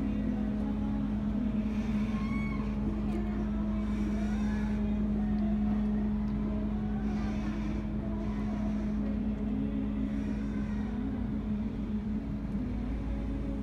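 Steady low drone of a cruise boat's engine machinery, with one constant humming tone over a low rumble.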